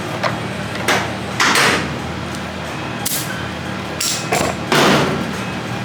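A series of sharp knocks and clatters, about six spread through a few seconds, over a steady low hum.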